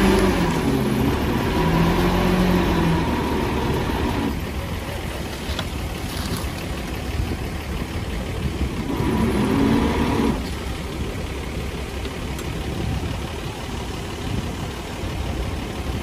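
Heavy diesel engine working under load over a steady low rumble. Its pitch rises and falls as it revs up and eases off at the start, and again about nine seconds in.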